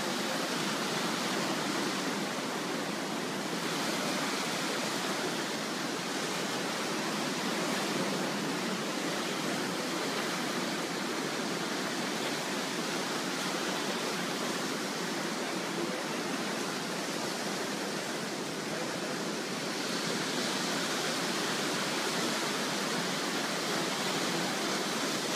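Gulf of Mexico surf washing in over shoreline rocks: a steady rushing hiss of breaking waves that swells gently now and then.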